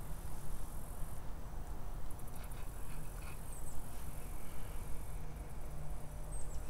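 Outdoor pond-bank ambience. A low rumble of wind on the microphone runs throughout, and insects buzz in short high-pitched pulsing trills a few times.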